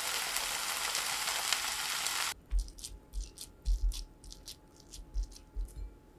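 Chopped kimchi sizzling in a frying pan as a steady hiss that cuts off about two seconds in. Then come a run of short scrapes and soft knocks as a rice paddle stirs and presses fried rice against the pan.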